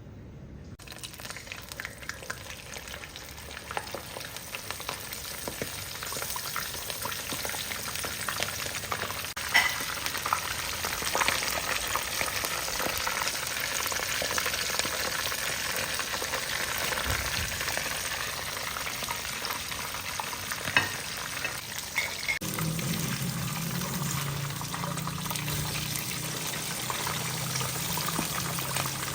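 Hot oil sizzling and crackling steadily as food deep-fries in a pan, with a few sharp clicks. A low steady hum joins about three-quarters of the way through.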